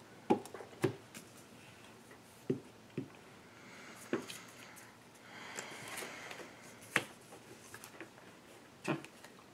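Sleeved trading cards being handled on a playmat over a wooden table: light taps as cards are set down and picked up, about seven in all, with soft rustling of cards near the middle.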